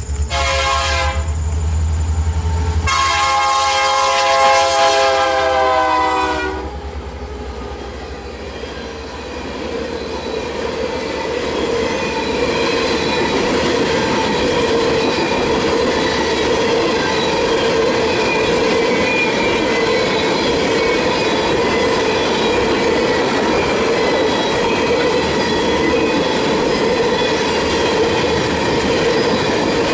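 Canadian Pacific SD70ACu diesel locomotives sounding their horn, a short blast and then a long one of about four seconds. A long freight train of tank cars then rolls past with steady clickety-clack of wheels over the rail joints and a steady wheel squeal.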